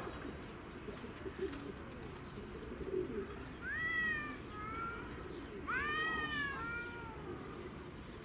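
A cat meowing twice, about four and six seconds in; each meow rises and falls and is followed by a shorter, lower note.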